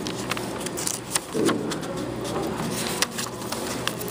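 Paper pages of a printed booklet being handled and turned, with soft rustling and a few sharp clicks.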